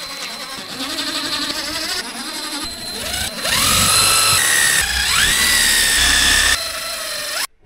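Power drill driving screws into a wall panel: the motor whine winds up in pitch twice as the trigger is squeezed, runs steadily, and cuts off sharply near the end.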